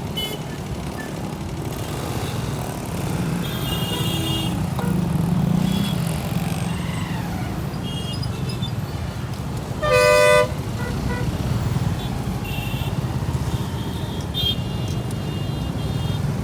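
A short, loud horn blast about two-thirds of the way through, over a steady low rumble of vehicles moving.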